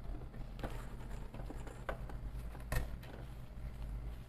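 Quiet handling at a sewing machine, with a few soft clicks and rustles over a low steady hum.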